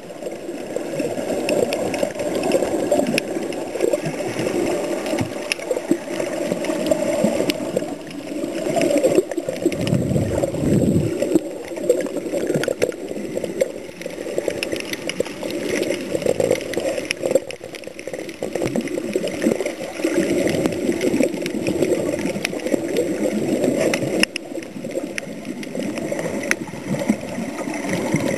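Muffled underwater water noise, a continuous sloshing gurgle over the camera as it moves through the sea, with a deeper rushing surge about ten seconds in.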